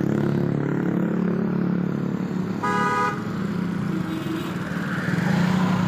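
Vehicle engine running steadily, with one short toot from a basuri-style multi-tone air horn about three seconds in.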